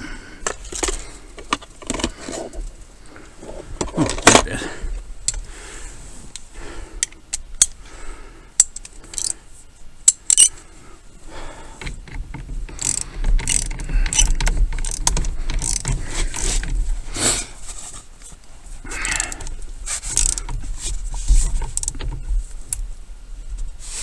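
Hand tools and small metal parts being handled: irregular clicks, clinks and clatter with a few sharper knocks, busier in the second half.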